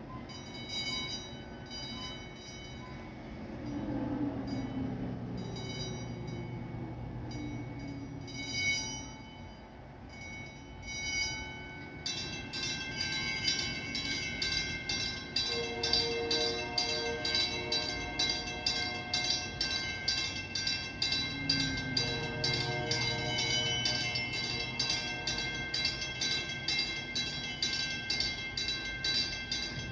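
Lift bridge warning bells ringing, struck now and then at first, then clanging rapidly and without a break from about twelve seconds in, over the low hum of the bridge's machinery.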